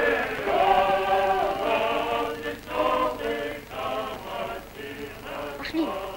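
A men's choir singing, holding long notes.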